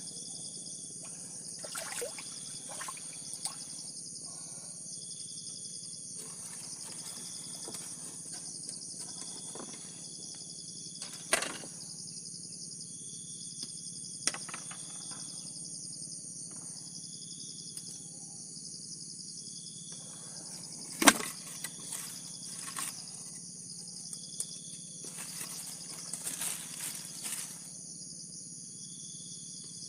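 A steady high-pitched insect drone, with a short chirp repeating every second or two. A few sharp knocks break in, the loudest about two-thirds of the way through.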